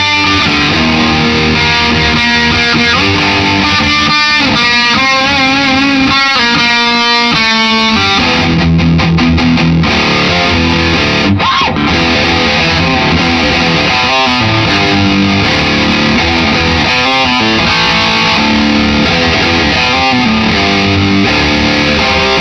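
Distorted electric guitar, a Gibson Les Paul, played through a guitar amp head and speaker cabinet: held notes and chords, with wide vibrato on some notes a few seconds in and a quick run of choppy muted notes partway through.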